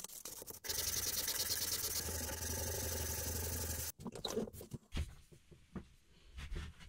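A steady rushing noise with a low hum underneath, which cuts off abruptly about four seconds in. It is followed by a few light knocks and clicks as the beech block is handled at the wooden bench vise.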